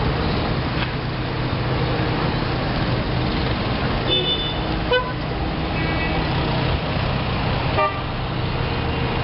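Busy street traffic: a steady hum of vehicle engines, broken by a few short car horn toots, about four seconds in, again about six seconds in, and a brief beep near the end.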